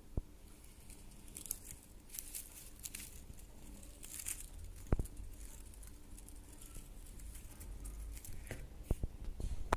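Faint rustling and scratching as a kitten moves about on a fluffy fleece mat, over a low steady hum. A few sharp clicks stand out: one just after the start, one about five seconds in, and a quick cluster near the end.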